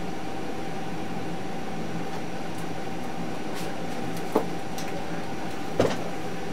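Steady mechanical hum of a PR2 robot's motors and fans, with a few faint clicks and two short sharp knocks as its gripper pushes into a cluster of small boxes and a toy on a tabletop, about four seconds in and again near the end.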